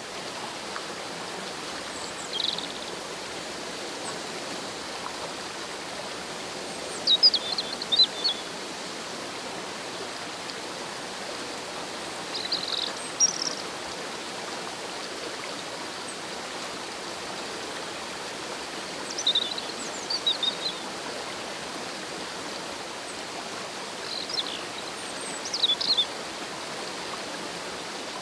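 A rushing mountain stream and small waterfall make a steady hiss of water. Over it a bird repeats short clusters of high, quick chirps about every five seconds, louder than the water.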